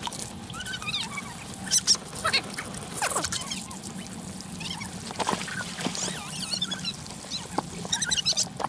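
Water from a hose running into a steel basin, with short animal calls rising and falling in pitch scattered over it.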